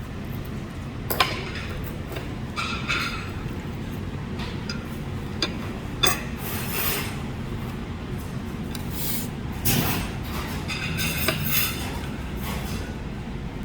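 Dishes and cutlery clinking and knocking now and then at a dining table, over a steady low hum of restaurant room noise.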